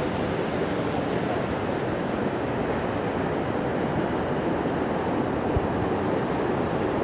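A river in flood rushing, a steady, dense noise of fast-flowing water.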